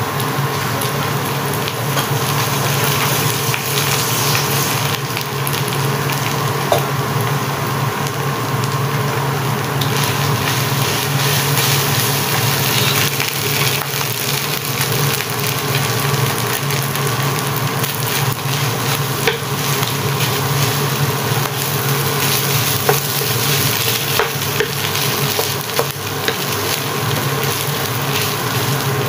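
Sticky rice with diced meat and vegetables frying in a frying pan, sizzling steadily while a wooden spatula stirs and scrapes through it with scattered small clicks and taps.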